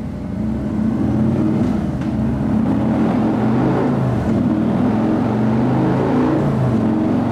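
Harley-Davidson Milwaukee-Eight 117 V-twin running through a Bassani 2-into-1 Super Bike exhaust with the bike on a chassis dyno. It comes up in loudness during the first second, then holds a steady speed with a slight waver in pitch.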